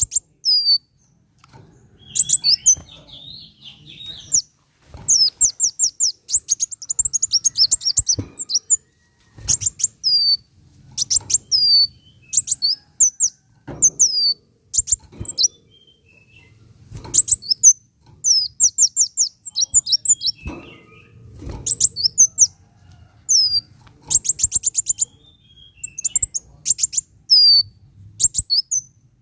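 Kolibri wulung sunbird singing gacor: bursts of high, quick chirps and rapid twittering trills, many notes sliding downward, with short pauses between phrases.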